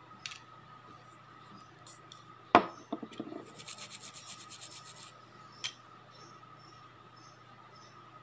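A sharp knock about two and a half seconds in, then a second and a half of quick, even back-and-forth rubbing strokes as a cotton wad is rubbed over a fingernail to wipe off softened nail polish; small clicks before and after.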